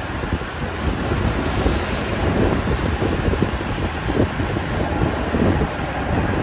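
Wind rushing and buffeting over the microphone of a camera carried on a moving bicycle, a steady low rumbling noise that rises and falls slightly.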